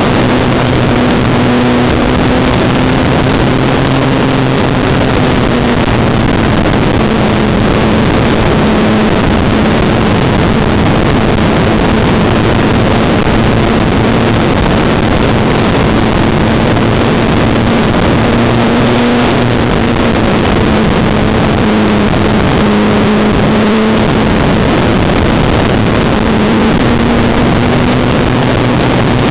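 Loud steady rush of airflow over a camera riding on an EasyGlider model glider in flight, with a faint motor-and-propeller drone underneath that wavers a little in pitch.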